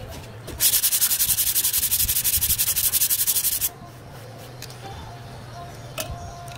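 Sandpaper on a hand sanding block rubbed quickly back and forth over a repaired car-body panel at the wheel arch, an even rasping hiss of rapid strokes that starts about half a second in and stops after about three seconds. This is the finer hand-sanding stage of the body repair.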